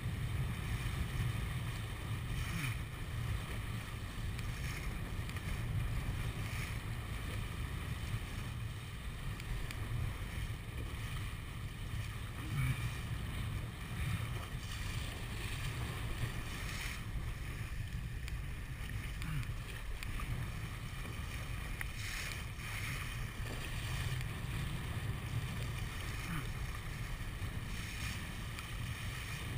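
Wind buffeting the microphone over the steady rush of water along the hull of a 470 sailing dinghy under way. Splashes of spray come off the bow every few seconds.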